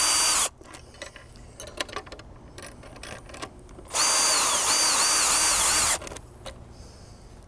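Cordless drill with a socket driving a lag screw through a metal saddle bracket into a wooden post. A short run stops about half a second in, then small handling clicks, then a second run of about two seconds starts four seconds in, its whine dipping and recovering several times as the screw bites.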